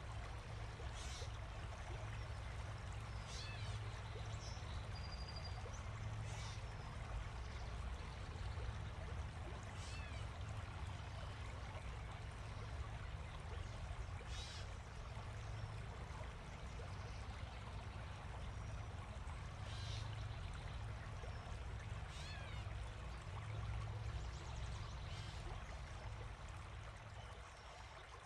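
Steady outdoor rushing ambience, like running water or wind, with short high bird chirps every few seconds.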